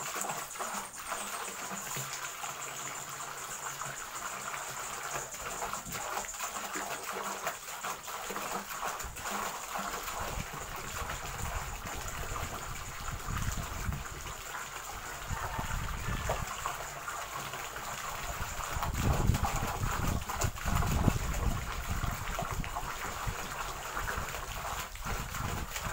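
Water pouring steadily from a pipe into a concrete bathing tank, splashing onto the water surface. A person bathing in the tank adds louder splashing about two-thirds of the way through.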